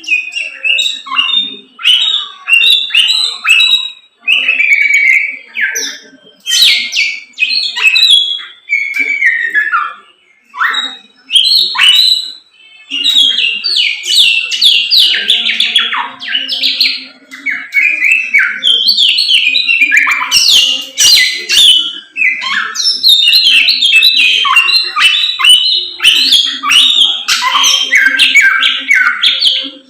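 Caged samyong songbird singing loudly in full voice (gacor): a long, varied run of quick chirps and gliding whistles in phrases with brief pauses between them.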